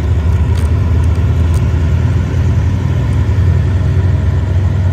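Hitachi diesel-electric locomotive running as it pulls its train slowly out of the station, a steady low rumble.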